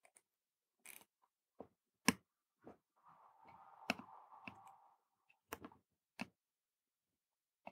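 Faint light clicks and taps of a soldering iron tip and solder wire touching the pads of a circuit board while one pad of each resistor pad set is tinned, with a faint hiss for about two seconds in the middle.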